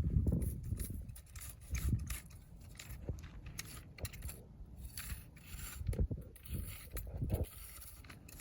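Irregular scraping and rustling of dry weeds and ground being worked by hand or tool, with a few dull thumps.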